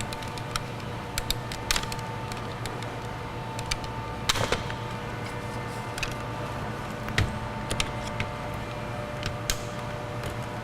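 Scattered sharp plastic clicks and snaps, the strongest about four seconds in, as a power mirror switch is worked free of a truck's door trim panel by hand, over a steady background hum.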